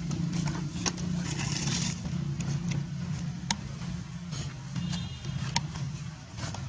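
A steady low mechanical hum, with a few sharp clicks and a brief faint high-pitched chirp about five seconds in.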